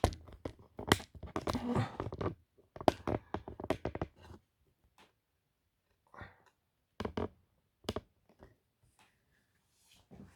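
Parts and packaging being handled: a quick run of knocks, clicks and rustling in the first few seconds, then a few single clicks and taps.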